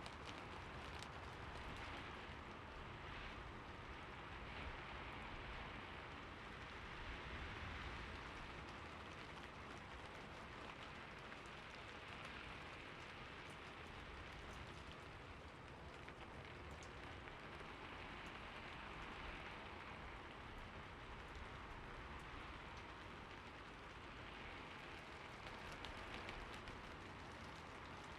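Steady rain falling, an even hiss with many small drop ticks that swells and eases gently every few seconds.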